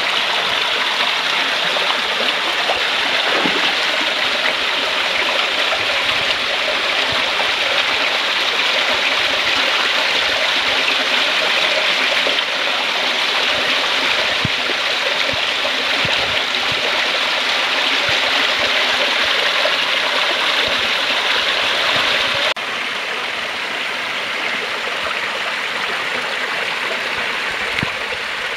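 A small rocky stream splashing over boulders in little cascades, a steady rush of water. About three quarters of the way through, the sound drops suddenly to a softer, quieter flow.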